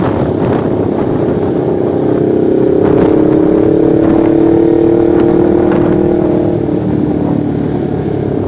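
Motorcycle engine running on the move in traffic, under a steady rush of noise. A clear, steady engine note comes in about two seconds in and fades out about seven seconds in.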